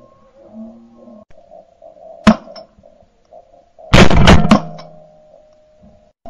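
Shotgun firing: one sharp report about two seconds in, then a quick string of several loud reports around four seconds in, with faint bird calls underneath.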